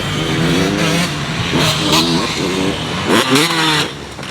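Motocross bike engine revving, its pitch climbing and falling several times as it accelerates and shifts, then dropping away just before the end.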